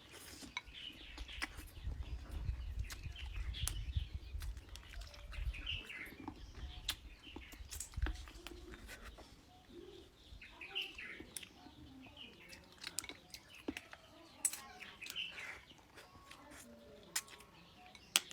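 Eating noises from duck heads and duck feet: many short sharp clicks of chewing and bone, with small birds chirping throughout, and a low rumble about two to six seconds in.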